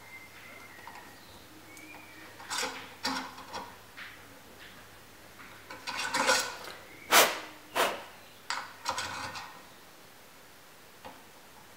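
A steel sling swivel stud with a wood-screw thread being screwed by hand into a drilled hole in a laminated wood rifle stock, turned with a metal pin through its eye. It gives a series of short scraping, clicking strokes, the loudest about seven seconds in.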